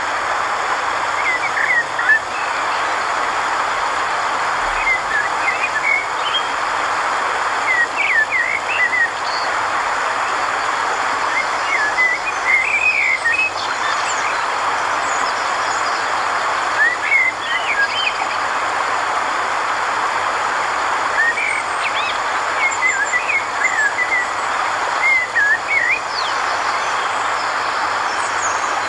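Birds chirping in short, warbling phrases every few seconds over a steady rushing background noise, like an outdoor nature ambience.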